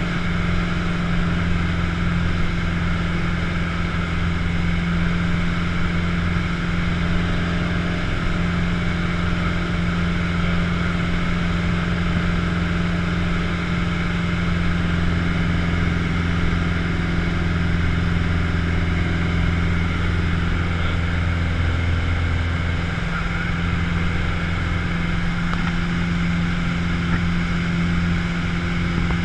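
Piper Warrior's four-cylinder piston engine and propeller droning steadily in cruise, heard inside the cockpit cabin with a low, even hum and airflow noise.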